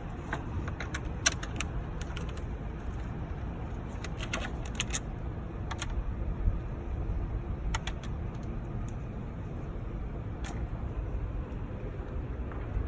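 Scattered light clicks and clinks of hand tools and bolts as a cooling fan is bolted in, with a small cluster of quick clicks about four to five seconds in, over a steady low background rumble.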